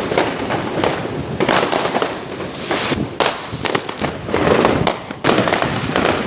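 Many fireworks going off together in a continuous crackling barrage of bangs and pops. A high whistle falls in pitch about half a second in, and another starts near the end.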